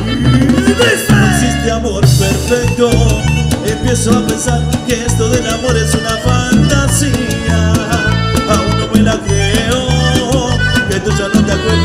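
Cumbia band playing an instrumental passage: a steady dance beat of bass and percussion under a melodic lead.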